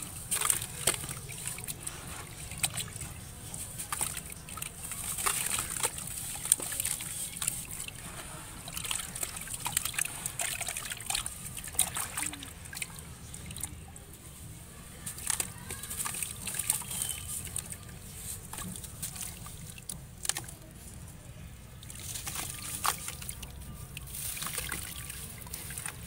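Soft crumbly sand chunks being crushed by hand and dipped into a plastic basin of water: gritty crumbling with many small, irregular splashes and crunches as the crumbs fall in, and the water sloshing as the hands work in it.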